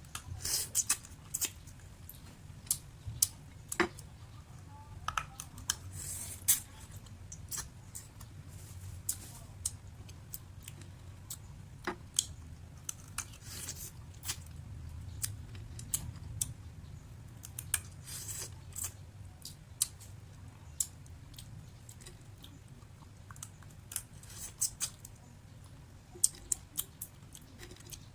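Close-up eating sounds: many sharp clicks and short crunches at irregular intervals as sun-dried food is bitten, chewed and handled, over a steady low hum.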